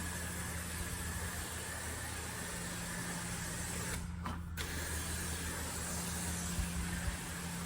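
Carpet-cleaning machine running steadily with a low hum and a broad hiss, briefly dropping out a little past halfway.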